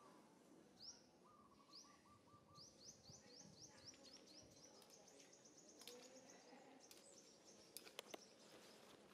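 Faint outdoor ambience with small birds calling: a short run of low repeated notes, then a quick series of short rising chirps, about four a second, fading out past the middle. A few sharp clicks near the end.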